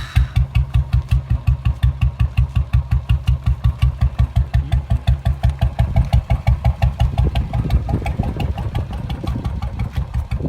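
Royal Enfield Bullet Electra 350's single-cylinder four-stroke engine idling through a mini Punjab silencer, just after starting: an even, loud thump at about five to six beats a second. It grows slightly less even in the last few seconds.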